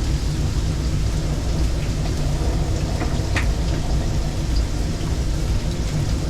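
Strong storm wind buffeting the microphone: a steady heavy low rumble, with one brief sharp sound a little past three seconds in.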